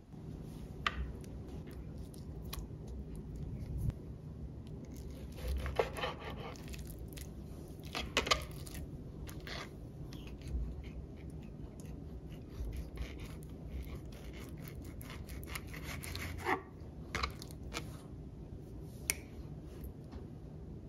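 Hand food-prep sounds: scattered light clicks, scrapes and rubbing, with a few sharper knocks, over a steady low hum.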